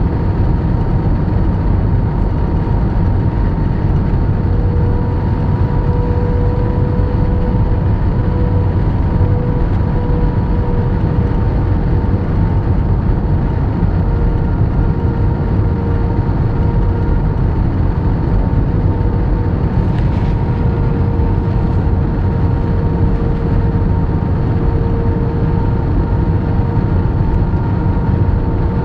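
Airliner cabin noise on the landing approach: a loud, steady rush of airflow and jet engine noise with a faint, steady whine running through it.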